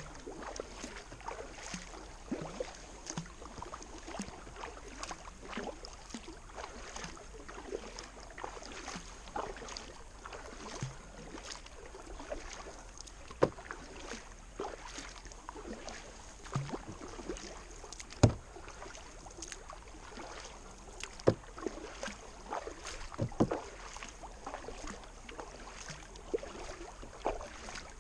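Kayak being paddled upstream against the current: the paddle blades dipping and splashing in the water at an irregular rhythm, with drips and a few sharp knocks.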